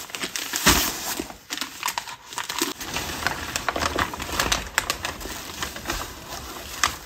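Brown kraft paper wrapping being torn open and rustled by hand, in a run of irregular sharp rips and crinkles. The loudest rip comes just under a second in.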